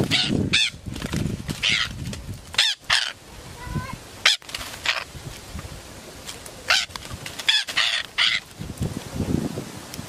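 Parakeet giving repeated harsh squawks in short clusters, with rustling underneath.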